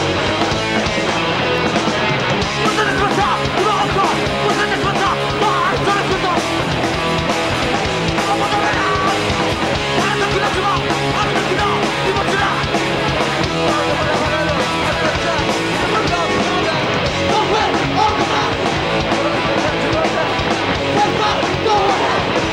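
Emotional hardcore band playing live, loud and dense throughout, with distorted electric guitars.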